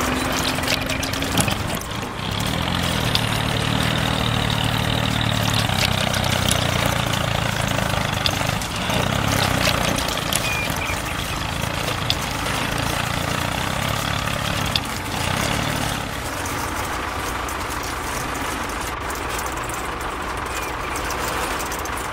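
Truck engine idling steadily, a low even hum that is clearest for most of the stretch and thins out near the end.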